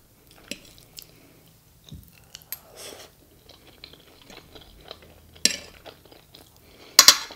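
A person chewing a mouthful of fried egg close to the microphone, with soft wet mouth clicks and smacks. Two louder short sharp noises come about five and a half and seven seconds in.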